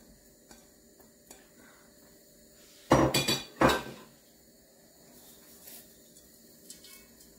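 Steel kitchenware clanking: two loud clatters about three seconds in, a little over half a second apart, each ringing briefly, with a few faint clicks around them.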